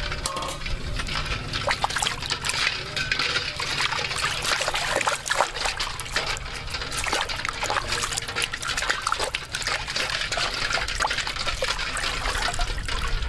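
Water splashing and sloshing in a stainless steel basin as hands scrub a raw pig's leg under the water, in quick, irregular splashes.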